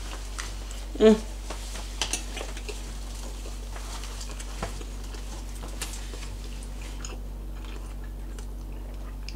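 Soft chewing and mouth sounds of people eating a meal of fish and rice, with a few faint light clicks and a brief voiced sound about a second in, over a steady low hum.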